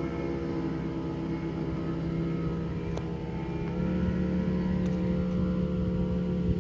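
Fishing boat's outboard motor running at speed: a steady engine note that steps up slightly in pitch about halfway through.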